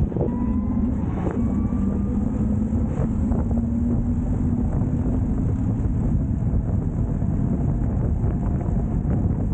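Wind rushing over the microphone of an electric scooter at speed, with the electric hub motor's thin whine holding steady and rising slightly for about the first six seconds, then fading under the wind.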